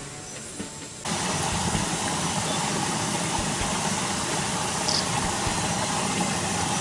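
A steady, even hiss of noise that starts abruptly about a second in and then holds level, after a quieter stretch with faint ticks.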